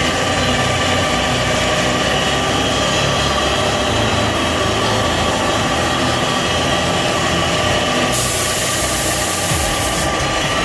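Air compressor running steadily, with a spray gun's air hiss coming in about eight seconds in and breaking off briefly near the end.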